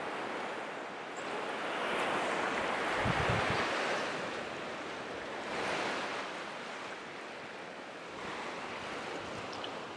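Surf breaking and washing ashore, with wind. The wash rises and falls, loudest about two to three seconds in and again about six seconds in.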